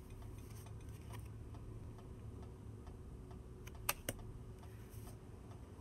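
Faint steady low hum of room noise, with two light clicks close together about four seconds in as tarot cards are handled.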